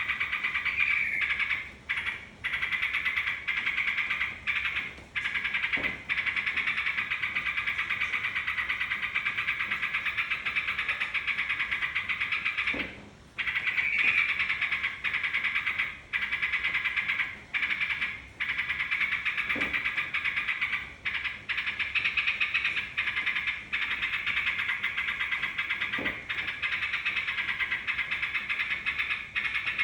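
Yellow-vented bulbuls (trucukan) chattering in a dense, unbroken chorus, with short breaks every few seconds; a lure recording meant to set a kept trucukan singing.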